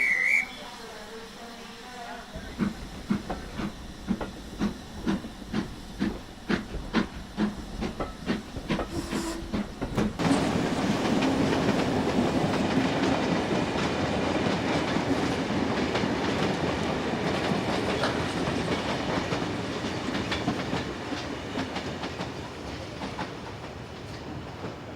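Model train running with its sound effects: a short high chirp at the very start, then a rhythmic beat about twice a second that quickens. About ten seconds in, a steady hissing rush takes over and slowly fades.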